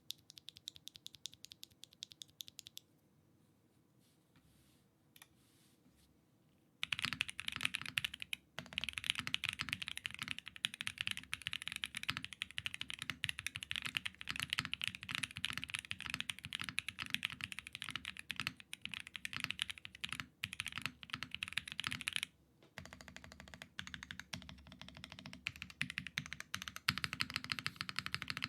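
Typing on an Arc 60 gasket-mount mechanical keyboard with Red Jacket V1 Redux switches (factory-lubed nylon housings, 63 g double-stage springs) in an aluminium plate with plate foam and GMK keycaps. A few light keystrokes come first and then a nearly quiet few seconds. From about a quarter of the way in there is fast, continuous typing, broken once by a short pause.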